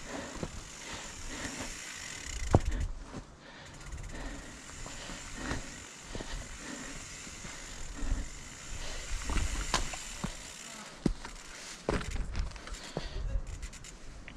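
Mountain bike rolling over a dirt trail: steady tyre and trail noise with irregular knocks and rattles from the bike over bumps.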